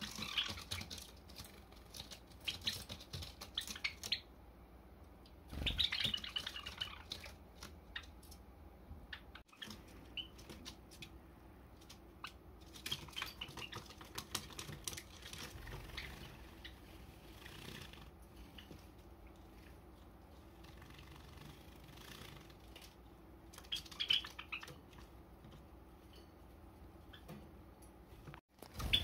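Pet Java sparrows chirping in a few short bursts of quick, high chirps, with faint room noise between.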